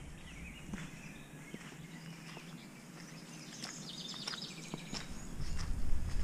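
Songbirds chirping and whistling, with a fast trill about halfway through, over the footsteps of someone walking on grass and gravel in sandals. A louder low rumble rises near the end.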